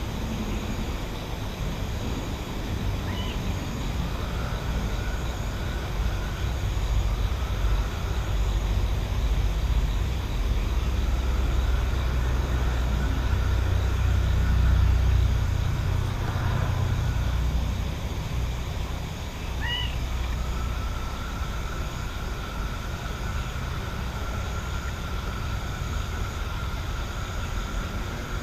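Countryside night ambience: a low rumble that builds to a peak about halfway through and then eases, under a faint steady trill that comes and goes and two short chirps.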